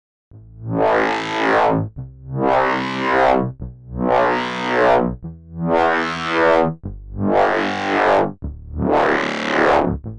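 Unfiltered Audio LION software synthesizer playing a slow repeating pattern of pitched notes, about one every one and a half seconds, each note's tone opening up bright and closing back down like a filter sweep. It enters after a short silence.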